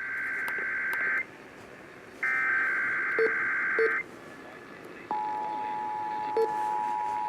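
Emergency Alert System Required Monthly Test heard over AM radio static: two buzzy digital data bursts of the SAME header, each about a second long with a second's gap, then about five seconds in the steady two-tone EAS attention signal begins.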